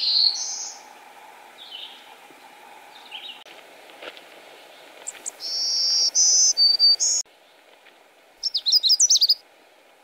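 Three wood warblers sing one after another. A black-throated blue warbler's rising buzzy phrase ends just as it begins. About five seconds in, a black-throated green warbler sings a song of about five high buzzy notes. Near the end, a Canada warbler gives a quick jumbled warble.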